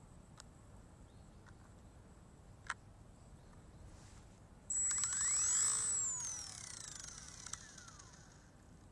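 A single sharp click, then about five seconds in a Super mini CP micro RC helicopter's electric motor and gear train spin up suddenly with a high whine and wind down over about three seconds, the pitch falling. Its main gear was chipped in a crash, which makes an abnormal noise.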